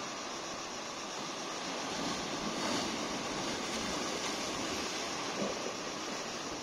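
Surf breaking against rocks and washing back over them: a steady rush of sea noise that swells a little about two to three seconds in.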